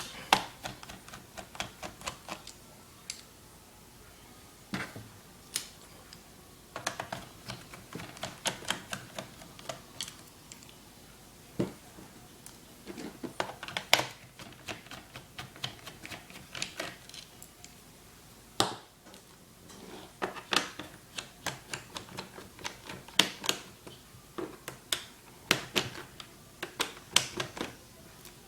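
Small sharp clicks and taps of a screwdriver working screws out of a laptop's plastic bottom case. They come in irregular clusters with short pauses between them.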